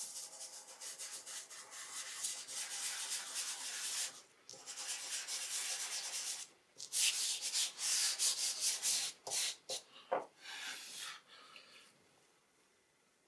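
Dry soft pastel stick scrubbed back and forth across thin drawing paper, a scratchy rasping rub in long runs with brief pauses, turning into a few short separate strokes before it stops near the end.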